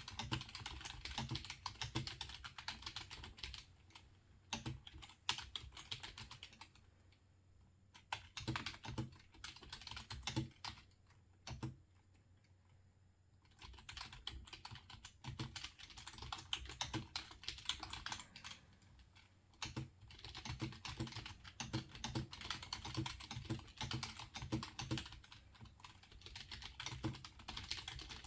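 Computer keyboard typing in quick runs of keystrokes, pausing a few times, once for about two seconds near the middle.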